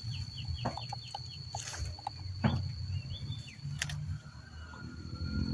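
Chickens clucking, with a run of quick high chirps from a small bird lasting about a second near the start, over a steady high-pitched insect drone.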